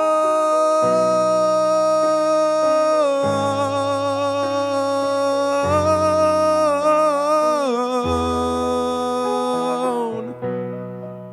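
A singer holds one long sung note over piano chords, wavering and dipping slightly in pitch about seven to eight seconds in, then stops about ten seconds in, leaving the piano chords alone.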